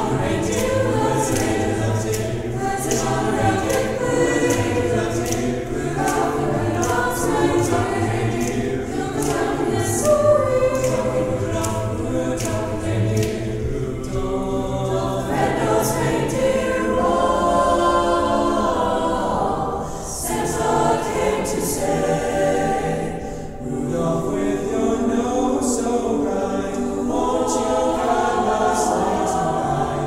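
High school choir singing holiday music in harmony, with brief pauses between phrases.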